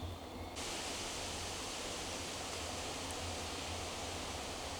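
Steady wind noise: an even hiss of wind with a low rumble underneath, the hiss growing fuller and brighter abruptly about half a second in.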